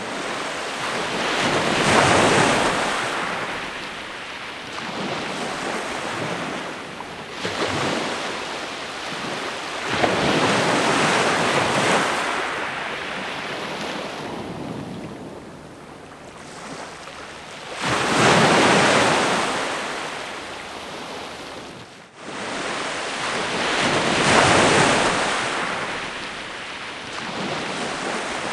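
Ocean waves breaking on a shore: a rushing surf that swells and falls away every few seconds. The surf cuts out briefly near the end, then resumes.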